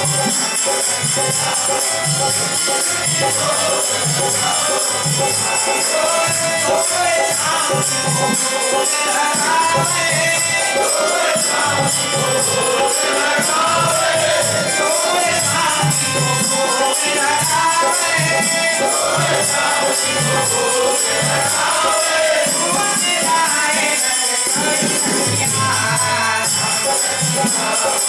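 Live Hindu devotional bhajan: several voices singing together over a steady dholak drum beat, with jingling hand percussion throughout.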